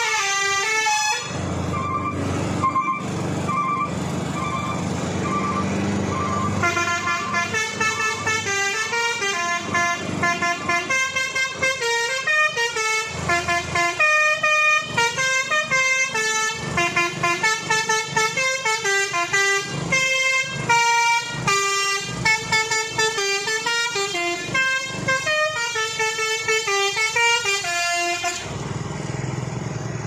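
Mitsubishi Fuso truck's telolet horn, a multi-tone air horn, playing a fast melody of quick stepped notes over the diesel engine running. For the first few seconds only the engine and a faint short repeated note are heard, and the tune stops shortly before the end.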